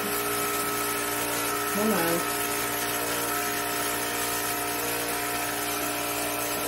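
Hantop electric milking machine's vacuum pump running steadily, a constant motor hum and hiss with several steady tones.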